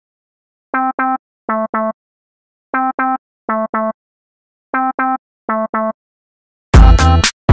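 Breakdown of an electronic hip-hop beat: a single synth note played in quick doubles, two doubles about every two seconds with silence between, the drums gone. Heavy drum-machine kicks and hits come back in near the end.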